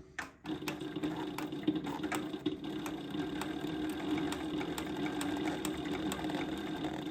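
SEWPRO 8360B post-bed industrial sewing machine with needle feed and walking foot, sewing steadily with a quick clatter of stitches; it starts about half a second in and stops near the end.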